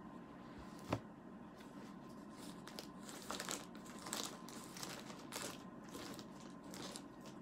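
Plastic courier bag crinkling and rustling in irregular bursts as a hand rummages inside it and pulls out clothing. A single sharp click comes about a second in.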